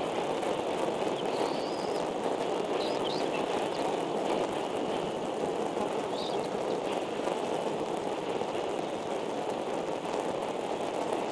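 Steady rushing outdoor noise picked up by the nest camera's microphone, like wind or rain, with a few faint short high chirps in the first half.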